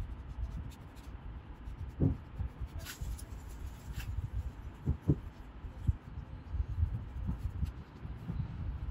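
A paintbrush brushing and tapping lightly on watercolour paper: soft rubbing with a few light taps, over a steady low rumble.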